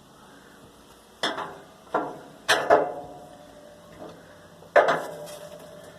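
Metal clanking on the baler frame: about five sharp knocks at irregular intervals, each leaving a short ringing tone, as the baler's binding cylinder is checked by hand.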